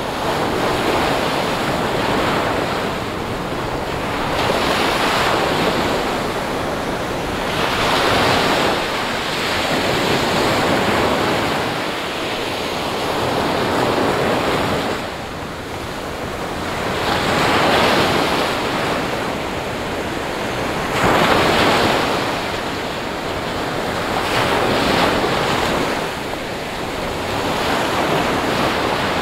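Small ocean waves breaking on a sandy beach and washing up the shore, the hiss of surf swelling and fading every three to four seconds.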